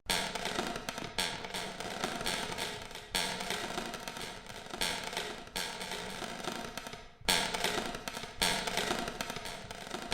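Church bells ringing: a repeated strike every one to two seconds, about eight in all, each ringing on into the next.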